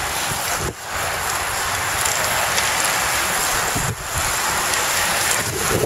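Steady rushing noise of wind buffeting the microphone, dropping away briefly twice.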